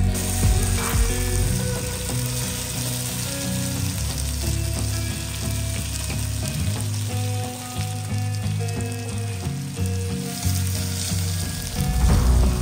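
Food sizzling as it fries in a pan, with background music playing held notes underneath.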